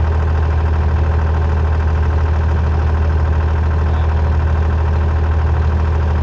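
Engine idling steadily, a loud even low hum with a fast regular pulse and no change in speed.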